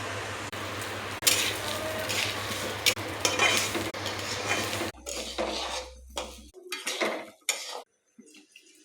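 Metal spoon stirring and scraping in a cooking pot, with a steady low hum underneath for the first half. The hum stops abruptly about five seconds in, leaving separate scrapes with short pauses that die away near the end.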